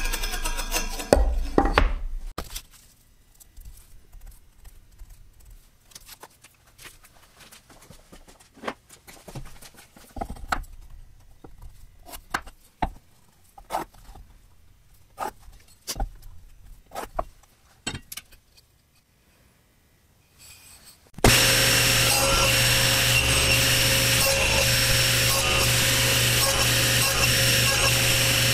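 A table saw blade spinning down with falling pitch, then scattered light taps and knocks of wood pieces and a metal square being handled. About 21 seconds in the table saw is switched on and runs steadily with a constant tone.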